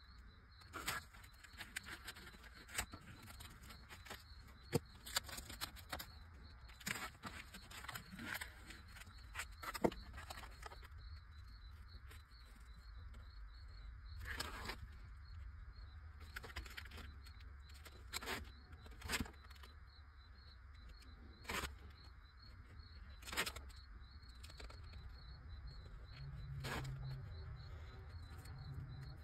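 Utility knife blade scoring and cutting masking tape around the rim of a plastic toy tractor wheel. It makes faint, irregular short clicks and scratches, with a steady low hum underneath.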